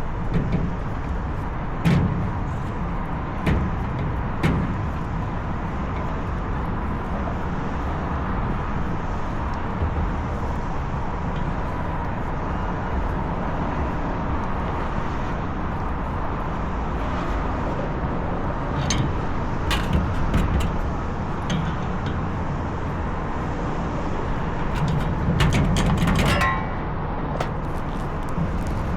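Steady machinery rumble with a faint even hum, broken now and then by sharp clicks and metal knocks from hand tools working on the condenser fan assembly. The knocks come a few times early on and cluster near the end.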